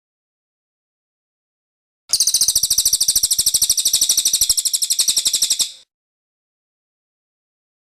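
Cililin bird singing one very fast, high-pitched trill of rapidly repeated notes, starting about two seconds in and lasting about three and a half seconds.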